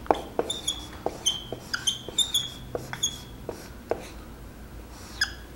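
A dry-erase marker squeaking on a whiteboard as a word is written: a quick series of short, high squeaks and ticks, one per stroke. They come several a second at first and thin out after about three seconds.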